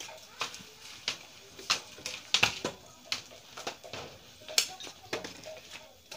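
Scattered sharp knocks and clicks from knives and utensils working on a hard surface while a duck is cleaned and cut, about a dozen at uneven intervals.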